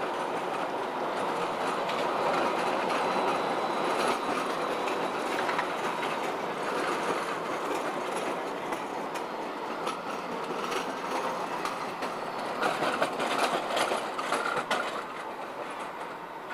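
Alstom Citadis low-floor tram passing close on a grass track: a steady rumble of steel wheels on the rails with a faint whine. A run of sharp clicks from the wheels comes about twelve to fifteen seconds in, where it is loudest.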